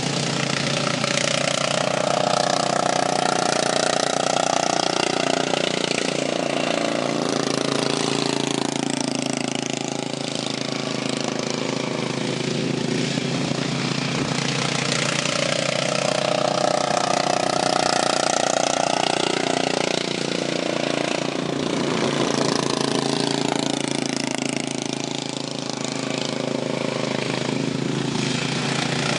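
Racing lawn mowers running flat out, their engines rising and falling in pitch in a repeating cycle about every eleven seconds as they come round the track.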